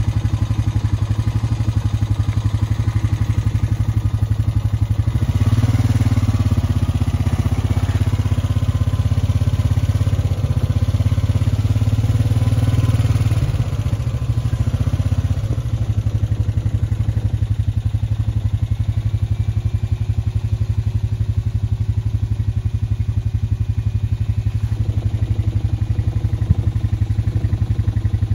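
An engine running steadily, a little louder for several seconds near the middle.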